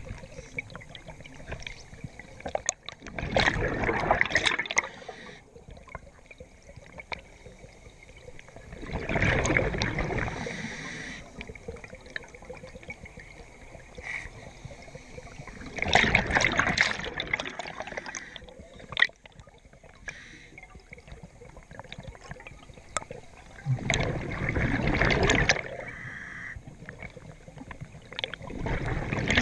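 Scuba regulator exhaust underwater: the breathing diver's exhaled bubbles burble past the microphone in five loud bursts about six to seven seconds apart, with quieter stretches between breaths.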